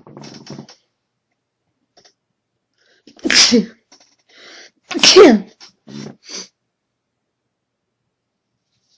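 A woman sneezing twice, loudly, about two seconds apart, after some breathy catching of breath. The second sneeze ends in a voiced cry that falls steeply in pitch, and two short, softer sounds follow it.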